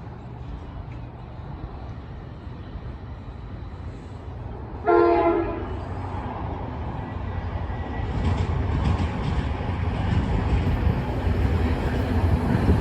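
Approaching freight train: one short blast of a diesel locomotive's air horn about five seconds in, then the low rumble of the locomotives growing steadily louder as the train nears.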